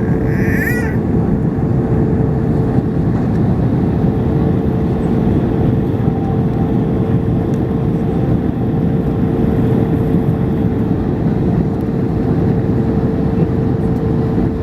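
Steady cabin noise of an Airbus A321ceo airliner in descent on approach: a loud, even rush of engine and airflow noise with a steady hum tone running under it.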